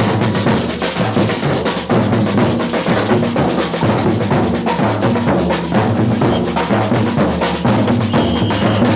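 Batucada samba percussion ensemble playing a steady, driving rhythm: deep surdo bass drums beating under dense, fast strokes of snare and smaller drums.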